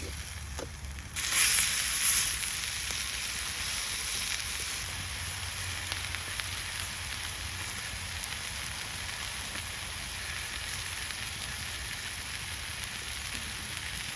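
Steak frying in a hot pan: a loud burst of sizzle about a second in as the meat goes down, settling into steady sizzling.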